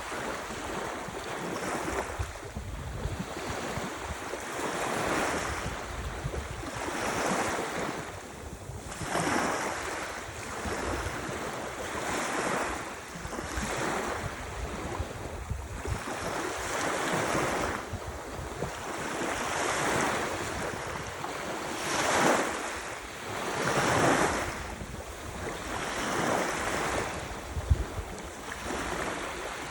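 Ocean waves washing in over and over, a steady surf hiss that surges roughly every two to two and a half seconds.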